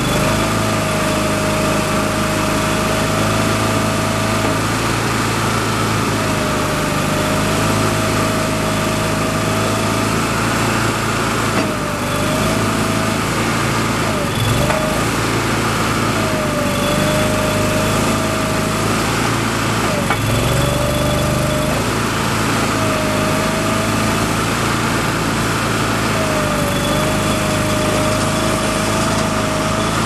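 The small gasoline engine of a 2007 Boxer 320 ride-on compact track loader running steadily. A wavering whine comes and goes every few seconds over the engine note.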